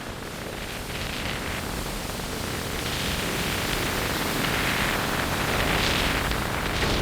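Strong storm wind blowing across the microphone: a steady rush of noise that builds into a stronger gust about halfway through.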